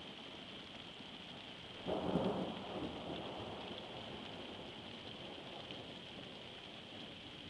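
Thunderstorm: rain falling steadily, with a sudden clap of thunder about two seconds in that fades over about a second.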